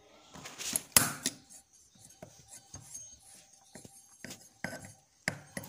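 Scattered metallic clicks and scrapes of pliers working a retaining ring inside a brush cutter's clutch-bell housing, the sharpest click about a second in.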